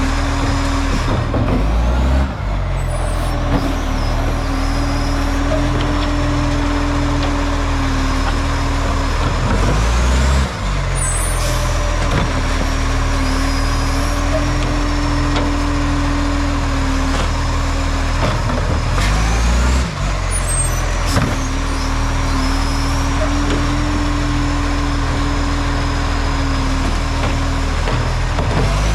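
Garbage truck's diesel engine running with an exhaust leak, a steady loud drone whose sound shifts in a cycle repeating about every nine seconds.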